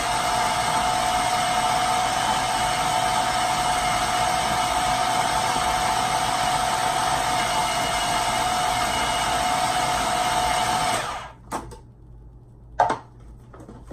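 Old food processor running loud and steady with a whine, grinding raw chicken into ground chicken. The motor cuts off about eleven seconds in, followed by a few clicks and a sharp knock as the lid is taken off.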